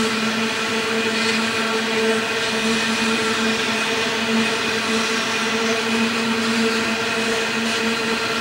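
Loaded coal hopper wagons rolling past on the rails: a steady, continuous hum that holds one pitch, over the even rush of the wheels.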